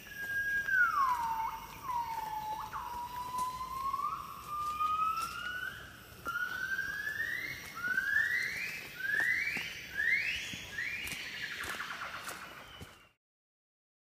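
Gibbon singing: a long note sliding down, then about ten rising whooping notes that come faster and climb higher, cutting off suddenly near the end.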